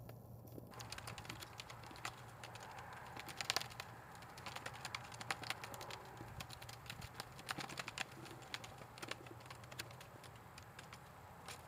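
Blue plastic flag on a stick flapping and crackling as it is waved about, with irregular sharp snaps that come in clusters.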